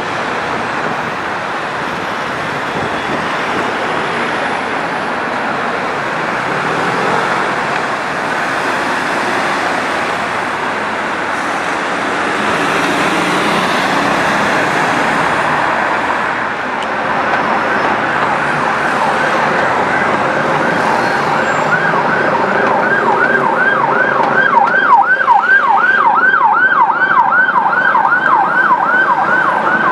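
Emergency vehicle sirens over busy road traffic. From a little over halfway through, a siren switches to a fast yelp, sweeping up and down about two to three times a second.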